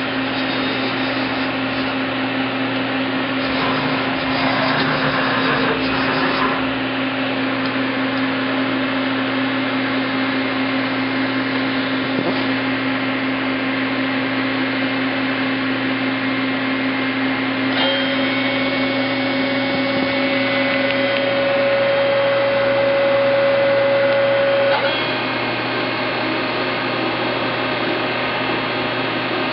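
Pratt & Whitney CNC Tape Drill Mate machining center running as its axes are jogged: a steady motor hum and whine. A higher whine joins about 18 s in, and the sound drops and changes about 25 s in.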